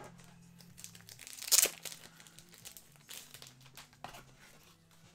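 Plastic card-pack wrapping crinkling and rustling as it is handled, with one loud, sharp crackle about a second and a half in and a smaller one about three seconds in.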